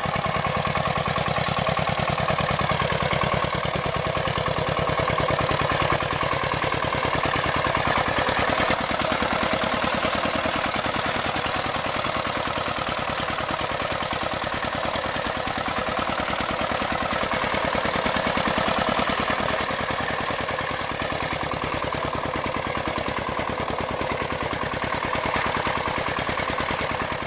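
Two-wheel walking tractor's engine running steadily under load while ploughing, with a fast, even firing beat.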